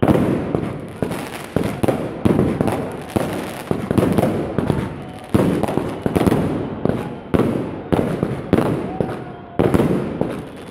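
Aerial fireworks bursting overhead in quick succession: a sharp bang about every half second to a second, each one trailing off as it echoes and crackles.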